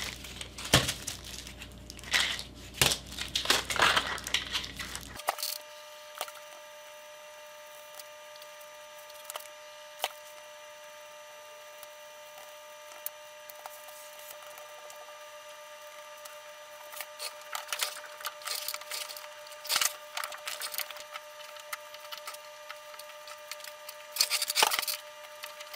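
Hands handling thin wooden inlay strips and clamps on a workbench: scattered clicks, taps and rustles, with denser clatter in the last few seconds as clamps go on. A faint steady hum of several tones comes in about five seconds in.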